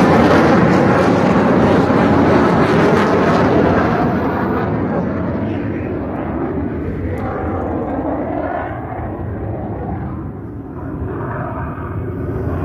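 F-35 fighter jet's engine roar receding after a low pass: loud at first, its hiss dying away after a few seconds, leaving a fading low rumble.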